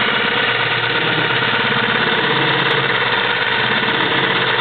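Longarm quilting machine running steadily as it stitches, its motor and needle making a continuous even machine sound.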